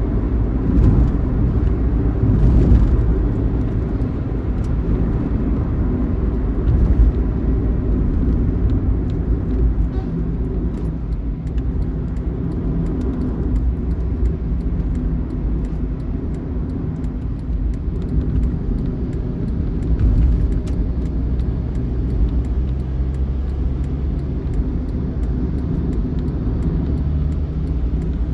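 A moving bus's diesel engine and road noise, a steady low rumble with faint engine tones and no break.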